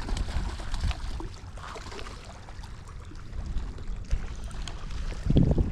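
Lake water splashing and sloshing as a hooked trout is played in at the bank, with scattered low knocks. The loudest knock comes just before the end.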